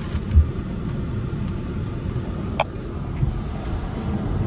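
Car engine and road rumble heard from inside the cabin as the car moves off, steady and low. A soft thump comes about half a second in, and a single sharp click a little past the middle.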